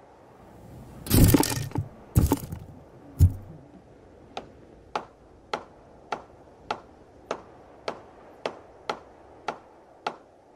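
Three heavy impacts about a second apart, then slow, even mechanical ticking, a little under two ticks a second. These are sound effects in a horror film's opening.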